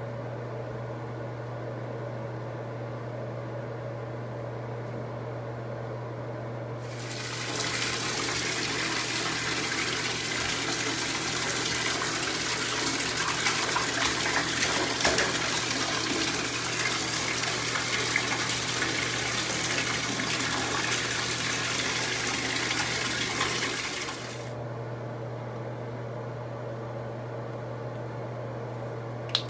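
Water running into a bathtub, starting about seven seconds in and cutting off abruptly some seventeen seconds later, over a steady low hum that runs throughout.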